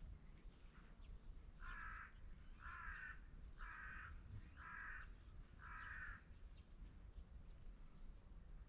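A crow cawing five times, about one caw a second, faint against a low steady background rumble.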